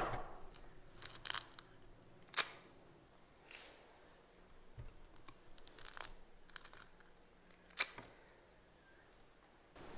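Kinetic sand being handled, with a few sharp clicks spread out, the loudest about two and a half and eight seconds in, and a soft grainy hiss between them.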